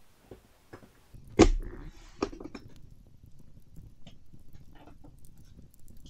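A series of knocks and clicks, with one loud thump about a second and a half in and a second sharp knock shortly after, then lighter tapping.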